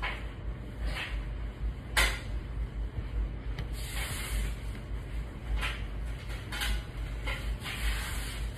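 Plastic shower liners and disposable Chux underpads rustling as they are spread and smoothed over a mattress by hand, with a sharp knock about two seconds in.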